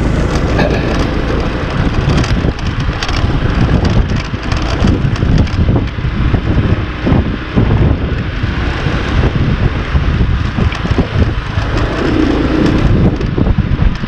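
Gusty wind buffeting the microphone: an uneven, rumbling noise that rises and falls.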